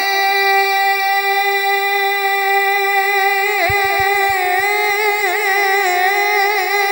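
Male naat reciter singing unaccompanied into a microphone, holding one long high note on a single syllable, with a slight waver in it near the middle.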